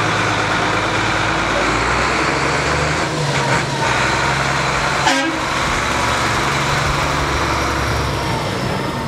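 Engine of a heavy diesel box truck running as the truck drives slowly past close by. The sound is loud and steady, then fades near the end. A single sharp click comes about five seconds in.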